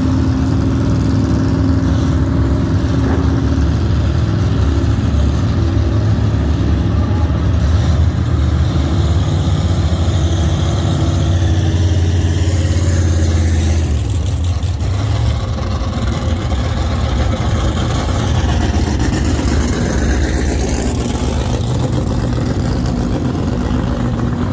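Racing engines idling in the staging lanes, a loud steady rumble that eases slightly about halfway through.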